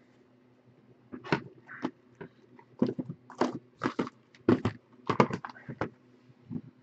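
Sealed cardboard trading-card hobby boxes being handled and restacked: a quick series of short knocks and rustles as the boxes are picked up and set down on each other, starting about a second in.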